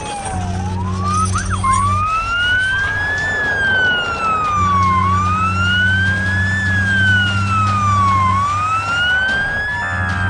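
Emergency-vehicle siren wailing, its pitch rising and falling slowly about every three and a half seconds, over a low hum that drops out twice.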